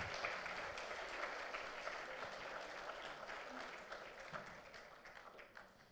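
Congregation applauding, the clapping gradually thinning and dying away near the end.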